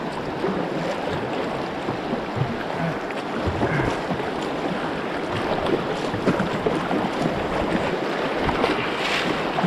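River rapids rushing steadily, with water splashing irregularly against a kayak.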